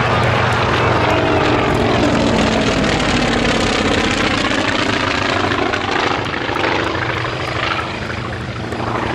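Polikarpov I-16 fighter flying past, its radial engine and propeller droning loudly, the pitch sliding down as it passes and the sound easing off a little in the last few seconds.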